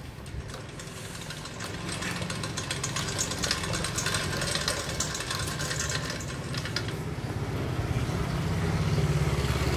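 Hand-cranked homemade pedal-drive rig running: a toothed belt over a large spoked wheel and a small pulley turning a right-angle gear head and a propeller spinning in the air, with a fast mechanical rattle and whir that gets steadily louder.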